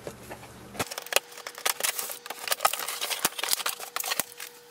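Cardboard printer box being slit open along its taped top and its flaps pulled back: an irregular run of crackles, scrapes and sharp clicks of cardboard and tape.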